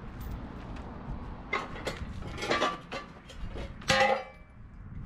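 Stripped steel car chassis of a 1961 Chevrolet Bel Air wagon being pulled forward by hand on its rear wheels, its metal parts clanking and ringing over a low rolling rumble. There are sharp ringing clanks about one and a half, two and two and a half seconds in, and the loudest about four seconds in.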